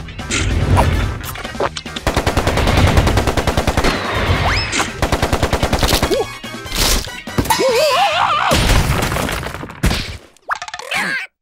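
Cartoon sound effects: a rapid, gunfire-like run of sharp hits lasting several seconds, then high wobbling squeals from the larva characters and a final crash near the end, over background music.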